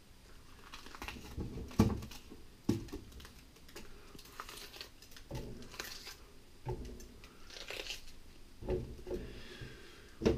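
A red bell pepper being cut and broken apart by hand on a plastic cutting board: scattered crunches and tearing of the flesh and knife knocks on the board, the loudest knock just under two seconds in.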